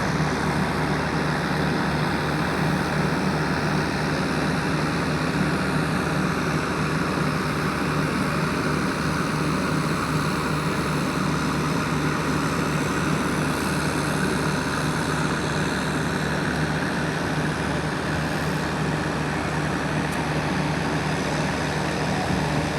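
Engine of heavy construction machinery running steadily, an even drone with no breaks.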